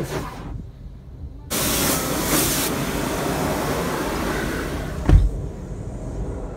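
Water spray drumming and hissing on the car's windshield and body, heard from inside the cabin. It starts suddenly about a second and a half in and eases off a few seconds later, with one low thump near the end.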